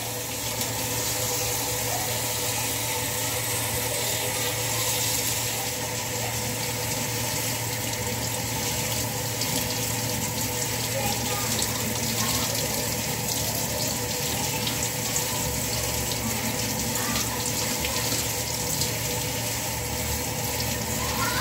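Kitchen faucet running steadily, the stream splashing onto chopped napa cabbage in a stainless steel mesh colander as hands rinse the leaves.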